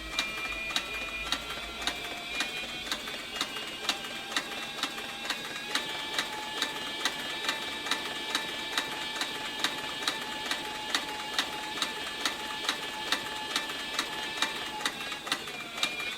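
Cowboy CB4500 compound-feed walking-foot harness stitcher sewing thick saddle leather, with a steady motor whine and a regular click of each needle stroke at about three stitches a second. The machine picks up a little speed about four seconds in, then runs evenly.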